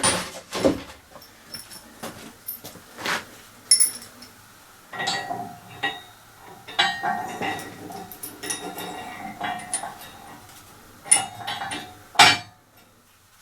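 Steel bolts, washers and press parts clinking and knocking against each other as a bolt is fitted by hand, with scattered sharp metallic knocks; the loudest comes near the end.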